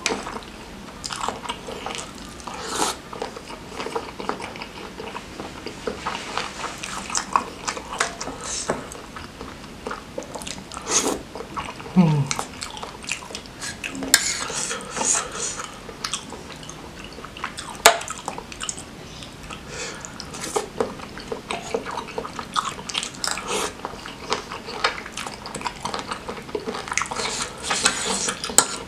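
Close-miked eating: a metal fork and spoon clinking and scraping against the serving tray many times, one very sharp clink near the middle, with wet chewing of tender beef tendon and meatballs in thick chilli sauce between them.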